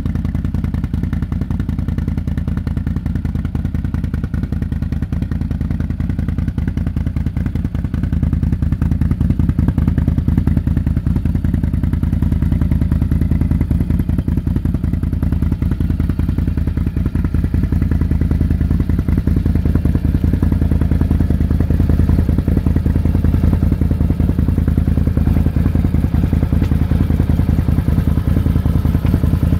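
Can-Am Renegade 650 XXC's Rotax 650 V-twin engine idling steadily through a Yoshimura aftermarket exhaust.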